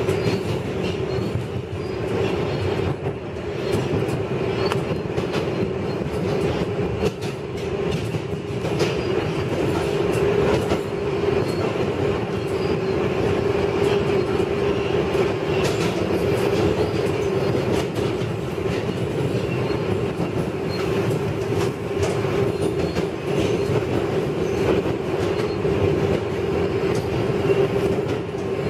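An R188 subway train running through a tunnel at speed: a steady hum over a continuous rumble of wheels on rails, with frequent clicks.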